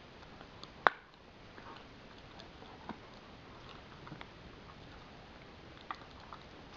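Husky chewing a bone: irregular sharp cracks and crunches of teeth on bone, the loudest about a second in.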